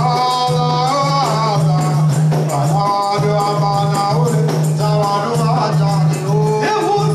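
Music with singing voices over busy hand percussion and a steady low held note.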